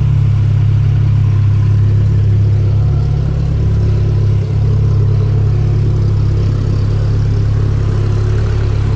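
Toyota Dyna truck engine running steadily while the truck is bogged on grass and its rear wheels spin: the front end is too heavy, so the front sinks and the back end loses grip.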